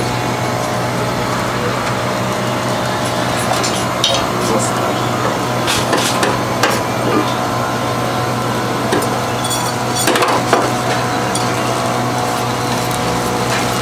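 Steady machine hum of a shawarma stall's equipment, with scattered knocks, clinks and scrapes of metal utensils as a long knife shaves meat off a vertical rotisserie spit.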